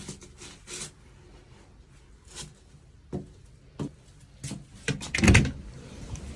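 Scattered footsteps and small knocks, then a louder clunk and rattle about five seconds in as a front door is opened.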